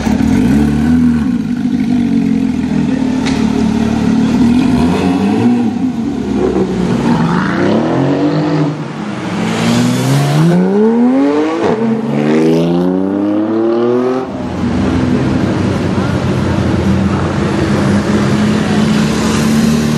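Porsche 991 GT3's 3.8-litre flat-six through a Sharkwerks exhaust, running on the move with a steady drone, revving up twice in rising sweeps about halfway through, then settling back to a steady run.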